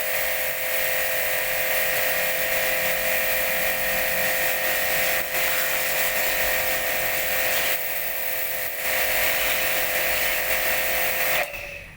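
Orion Super Jet 100-S high-pressure washer running steadily with a whining motor and spray hiss. It dips briefly about eight seconds in and cuts off suddenly near the end, as the machine shuts itself off.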